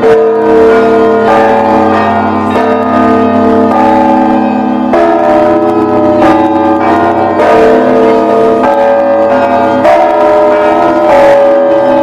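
Several church bells of different pitches ringing together, with a new strike roughly every second and a quarter and each bell's tone ringing on into the next.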